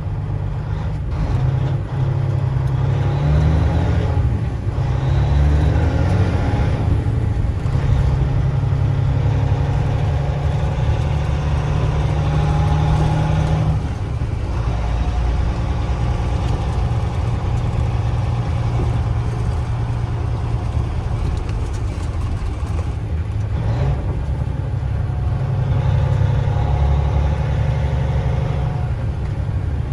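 Motor vehicle engine and road noise, steady and loud, with the engine's pitch stepping and rising as the vehicle speeds up and changes gear several times.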